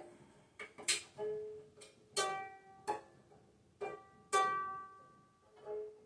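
Banjo ukulele strings plucked one at a time, about eight single notes that each ring briefly and fade, with a few sharp clicks between them.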